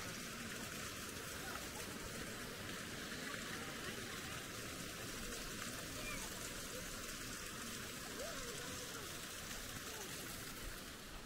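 Steady rush of a stream's running water, even throughout with no distinct events.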